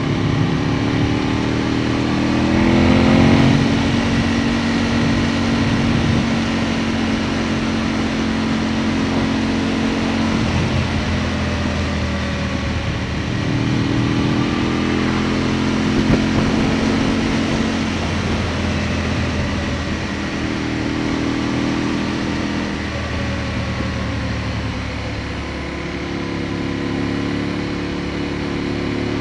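Aprilia Tuono motorcycle engine heard from on board while riding, its pitch rising and falling with throttle and gear changes over a steady rush of wind. The loudest moment is a quick rise in revs about three seconds in.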